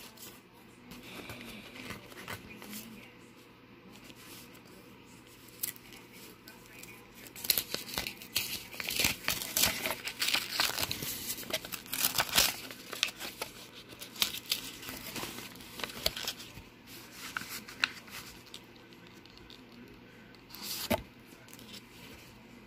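Plastic wrapping and paper packaging rustling and crinkling as the contents of a mailing box are handled. It is quiet at first and busiest for several seconds in the middle.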